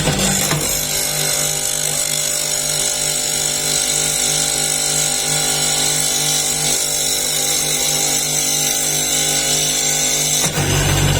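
A woodworking power tool's electric motor running steadily.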